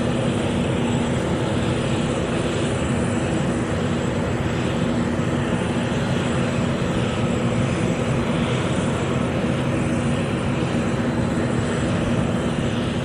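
Jet airliner engines idling on the ground at an airport, a steady rumble with a thin high whine over it.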